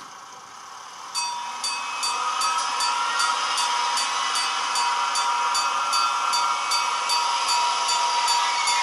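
H0-scale ESU KG 230 B model diesel shunter setting off and running slowly. Its sound sets in about a second in: a steady whine over a hiss, with regular ticks about three times a second.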